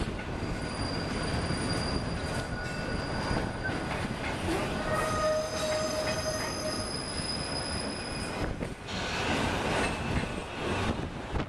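Freight cars rolling past on a curve, their wheels squealing against the rail in several steady high-pitched tones over the rumble of the train. The squeal dies away about eight seconds in.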